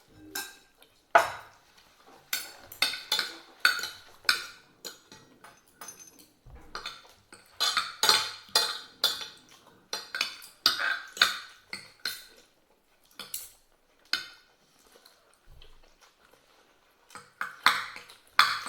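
Spoons and forks clinking and scraping against plates during a meal: many short sharp strikes in quick clusters, with a quieter spell about two thirds of the way through before the clinking picks up again.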